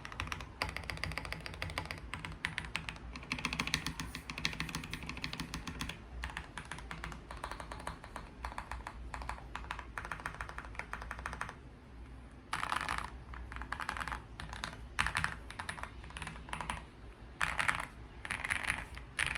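Typing on a Tiger80 Lite mechanical keyboard: Quartz V1 switches on a polycarbonate plate, with ePBT PBT keycaps and PCB and plate foam. Fast, continuous keystrokes for the first eleven seconds or so. After a short pause the typing comes in separate short bursts of rapid key presses.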